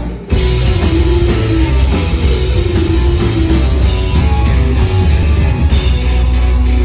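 Live rock band playing loud, with guitar and drums over a heavy low end. The music cuts in abruptly a moment after the start.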